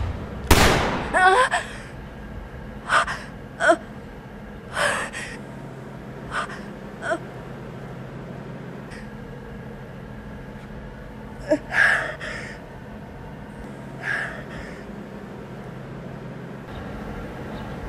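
A teenage girl gasping and whimpering in fear: short ragged breaths at irregular intervals, a few with a wavering cry in them, with a longer pause in the middle.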